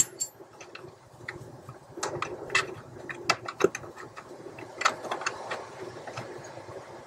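Small scattered metallic clicks and taps of a nut and washer being handled and started by hand onto a clutch master cylinder mounting stud, with soft handling noise between them.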